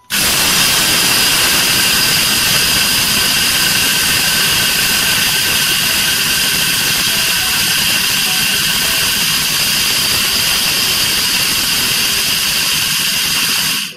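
Electric grain mill running steadily, grinding a hopperful of dried seeds and split pulses into meal. Its motor gives a loud, steady whine over a grinding hiss.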